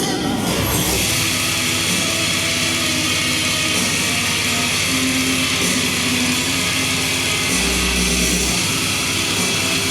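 Rock music with guitar and a steady deep bass line, played loud through Micca OoO bookshelf speakers.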